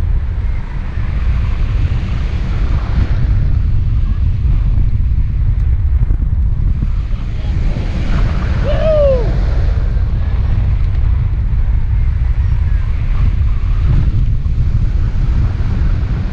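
Wind buffeting the microphone of a hang glider pilot in flight: a loud, steady low rumble. About halfway through, a single short tone rises and falls in pitch.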